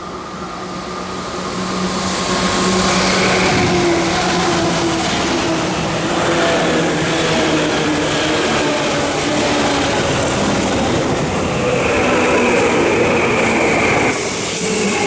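Tokyu 8500 series electric train running with its traction motors whining loudly in several pitched tones over the noise of the train. The sound swells over the first two seconds and then holds steady, and it changes abruptly near the end.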